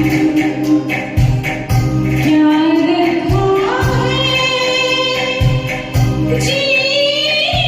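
Music from a Hindi film-song backing track, with a low beat pulsing about once a second under sustained, gliding melody lines that climb higher near the end.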